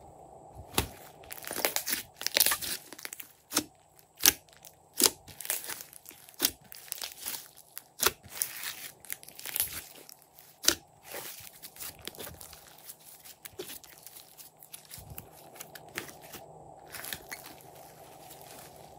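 Thick pink and yellow slime being folded, pressed and squeezed by hand, giving irregular sticky clicks, pops and crackles; the loudest pop comes about four seconds in.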